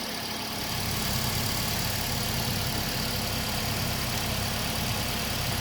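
Car engine idling steadily, a little louder from about a second in.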